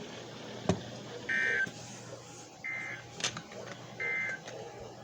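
Three short bursts of warbling two-pitch digital data tones from a NOAA Weather Radio broadcast, evenly spaced about a second and a half apart. These are the Emergency Alert System SAME tones that mark the end of the warning message. A couple of sharp radio static crackles sound between them.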